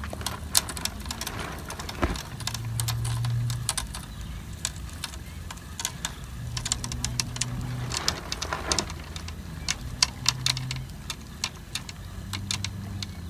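A spinning fishing reel being cranked to wind in line: a run of irregular clicks and ticks, with a low hum in three short stretches.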